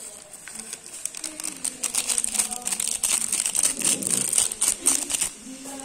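Instant-noodle seasoning sachet crinkling as it is shaken and squeezed to empty masala powder over the noodles. A quick run of sharp crackles starts about a second in and stops shortly before the end.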